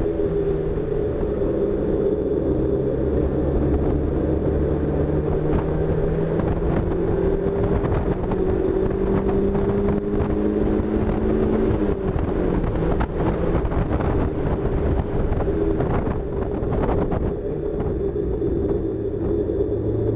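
1999 Mazda Miata's 1.8-litre four-cylinder engine pulling under load, heard from inside the open-top cabin with wind rushing past. The engine note climbs slowly for about twelve seconds, drops off, then begins climbing again near the end.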